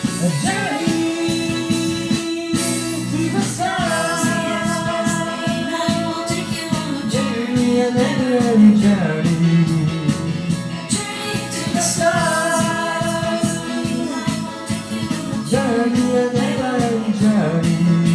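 Rock band music with no words sung: a held lead melody that slides between notes, over guitar and a steady drum beat.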